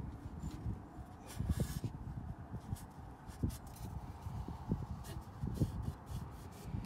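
Faint rubbing and scattered light knocks of handling at a mower's oil filter housing, a rag wiped around its metal rim to clear off dirt.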